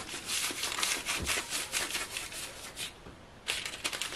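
Baking paper rustling and crinkling as hands press and tuck it around a shaped baguette loaf in a baking tray, in quick close strokes, with a short pause about three seconds in before more rustling.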